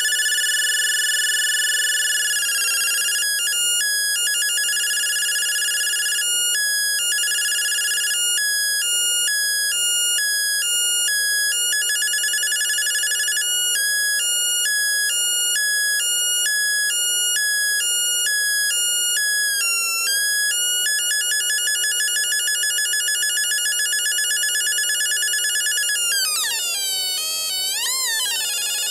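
Theremin siren circuit built from timer-chip oscillators, its speaker giving a buzzy electronic tone that switches between two pitches. It moves at changing speeds, sometimes in slow alternation and sometimes in a fast warble. Near the end it begins sweeping smoothly up and down like a siren.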